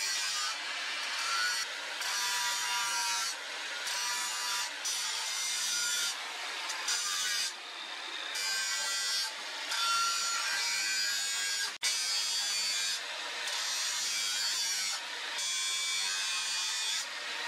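Angle grinder with an abrasive disc cutting and grinding a steel cleaver blank: a harsh hiss with a whine, easing and coming back several times as the disc is pressed into the steel and eased off. The sound cuts out sharply for an instant about twelve seconds in.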